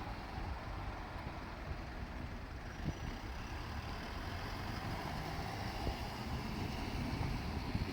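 Steady low rumble of a diesel railcar engine running.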